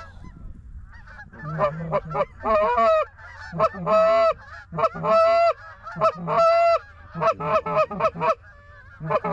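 Canada goose honks and clucks in a quick, loud series, several notes held about half a second, starting after a quiet first second. A steady low wind rumble runs underneath.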